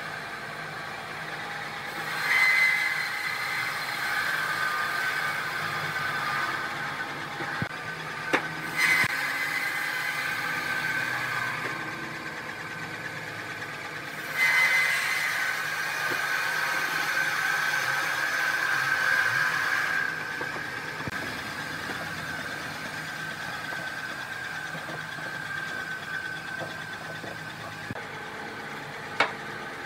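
Woodworking machinery running with a steady high whine that swells louder several times, with a few sharp knocks.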